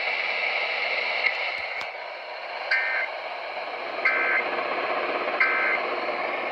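Steady radio hiss broken by three short two-tone data bursts about a second and a half apart. These are the EAS/SAME digital end-of-message codes that close the alert.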